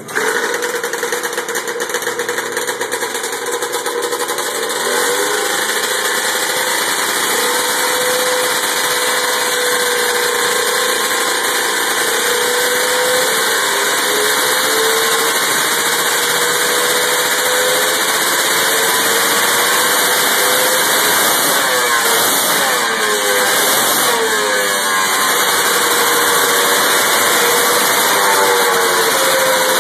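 A 1976 Arctic Cat 340 Super Mod liquid-cooled race snowmobile's two-stroke engine runs loud and steady at a fast idle. Its throttle is blipped in several quick revs about two-thirds of the way through and once more near the end.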